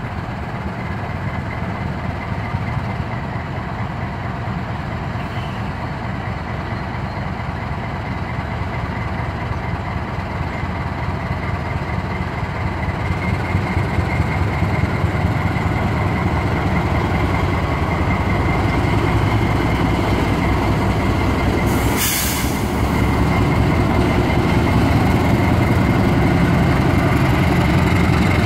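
GE CC206 diesel-electric locomotive pulling a ballast train away, its engine running under load and growing louder as it draws near, with a steady high whine over the low rumble. A short burst of air hiss about three-quarters of the way through.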